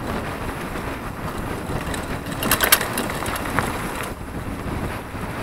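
Mountain bike ridden fast over a dirt trail: wind buffeting the microphone and tyres rumbling over the ground, with a short burst of rattling clicks about two and a half seconds in and a smaller one a second later.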